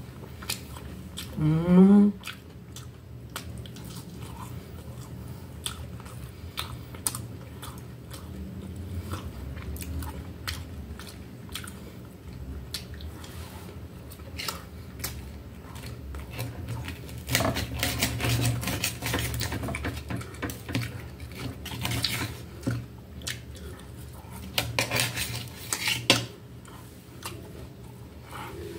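A fork and knife clink and scrape on a metal plate as breaded chicken is cut and eaten, with chewing between the strokes. About two seconds in comes a short rising "mm" from the eater's voice.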